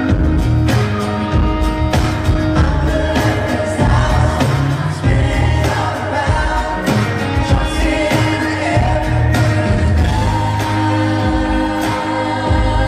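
Live country band with several voices singing together in harmony over drums, bass and guitars.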